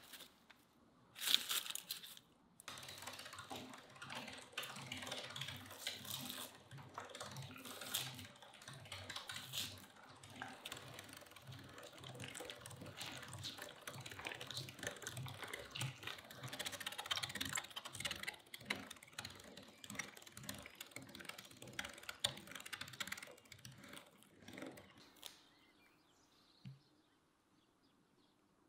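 Meat grinder mincing raw meat: steady rhythmic clicking and low mechanical pulses as the meat is pushed through. A short rustle about a second in, and the grinding stops well before the end, leaving near quiet.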